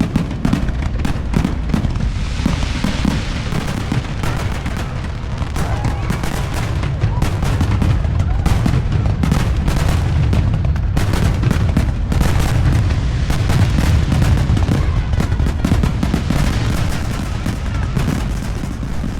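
Fireworks display going off as a continuous barrage: many bursts and booms in quick succession over a steady deep rumble.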